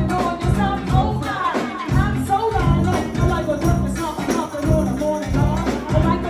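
Go-go band playing live: a steady, driving beat of bass and percussion with a melodic line over it, between rapped verses.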